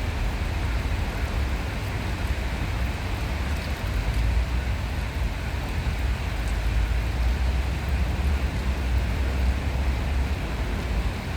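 Steady rushing noise with a deep, continuous low rumble underneath, with no distinct events.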